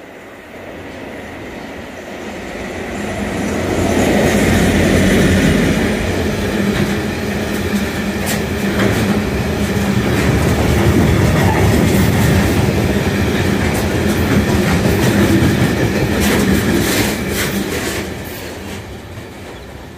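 GB Railfreight Class 69 diesel-electric locomotive hauling a train of engineering wagons past. The sound grows louder over the first few seconds as the locomotive approaches, then the wagons rumble and clatter over the rail joints, with a few sharp clicks near the end before the sound fades.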